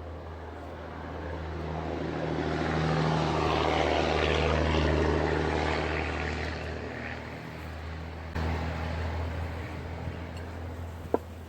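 A passing vehicle: its engine noise swells for about four seconds and then fades, over a steady low hum. There is a single sharp click near the end.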